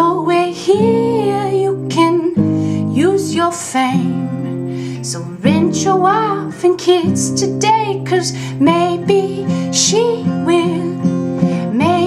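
A woman singing solo with her own strummed acoustic guitar accompaniment.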